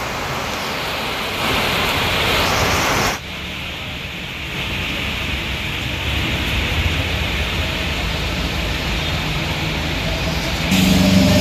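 Steady hiss of rain falling on a wet street, with vehicles passing on the wet road. The hiss drops sharply about three seconds in and goes on more quietly, with a low rumble under it.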